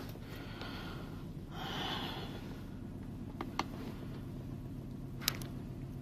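2002 BMW 525i's inline-six idling with a misfire on cylinders 2 and 4, put down to failing ignition coils. Breathy hiss in the first couple of seconds and a few sharp clicks, the loudest about five seconds in.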